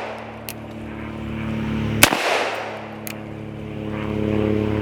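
A single-action Cattleman revolver firing .45 Long Colt cowboy loads: one sharp shot about two seconds in that echoes briefly. A faint sharp tick follows about a second later, and a steady low hum runs underneath.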